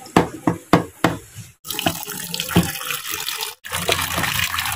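Sliced bamboo shoots tipped from a plate into a plastic tub, with several sharp knocks, then steady running and splashing water as the pieces are washed by hand to take out their bitterness.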